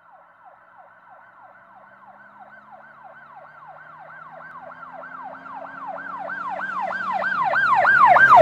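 Emergency-vehicle siren in a fast yelp, each cycle a quick falling sweep, about three to four a second. It grows steadily louder as it approaches.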